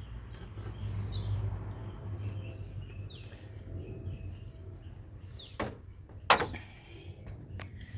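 Two sharp knocks, the second the louder, about five and a half and six and a half seconds in, over a steady low rumble with birds chirping in the background.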